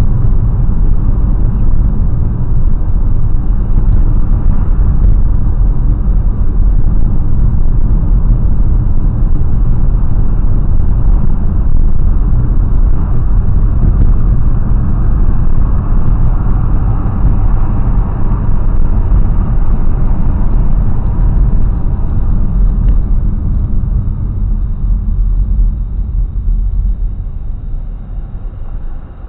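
Car driving on the road: a steady low rumble of road and engine noise that eases off near the end.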